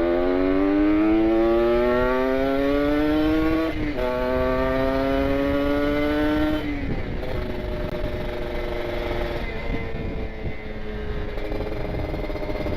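Kawasaki Ninja RR 150's two-stroke single-cylinder engine, breathing through an R9 Carbon aftermarket exhaust, accelerating through the gears. The pitch climbs, drops at an upshift about four seconds in, climbs again, and drops at a second upshift about seven seconds in. After that it holds a steadier cruising note.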